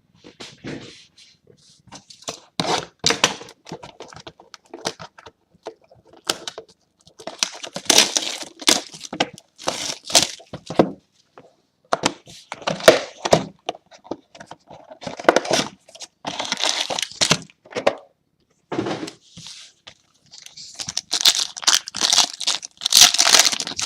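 A box of 2016 Revolution Soccer trading card packs being opened by hand, with pack wrappers torn and crinkled. The tearing and crinkling comes in irregular bursts, loudest in clusters about a third of the way in, in the middle and near the end.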